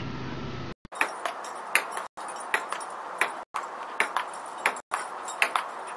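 Table-tennis rally: a ping-pong ball clicking sharply on the table and bats, about two to three hits a second. A steady low hum comes before it for the first second.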